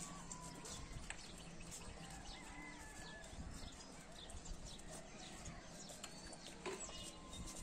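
A litter of Mudhol hound puppies nursing: faint, busy suckling clicks and smacks, with occasional thin squeaks.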